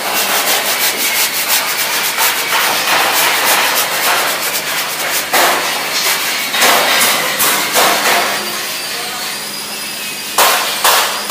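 Rapid back-and-forth scraping strokes of sanding on a car body, thinning out about eight seconds in, with a few louder strokes near the end.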